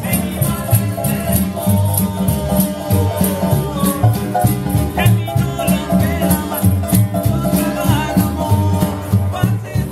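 Street band playing upbeat music on strummed acoustic guitars, with a steady shaker-like rattle keeping the beat and a bass line underneath.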